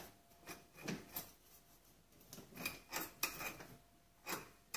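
Rear brake drum of an ATV being handled and turned by hand over freshly fitted brake shoes: a series of short metal scrapes and clunks.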